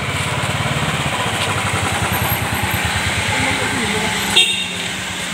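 Motorcycle and car engines passing on a road, the motorcycle's engine pulsing rapidly as they go by. A brief sharp click about four seconds in.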